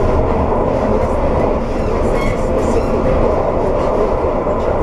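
CAF Urbos 3 tram running along the track, heard from inside the driver's cab: a steady rumble of wheels on rail and traction motors, with a few light clicks.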